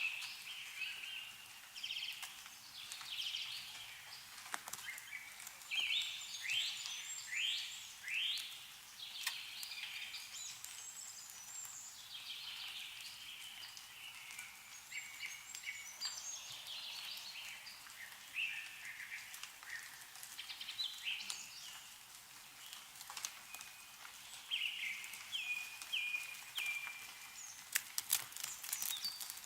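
Several songbirds chirping and calling over and over in short, quickly sweeping notes, with scattered sharp ticks of meltwater dripping from snowy trees, a quick run of them near the end.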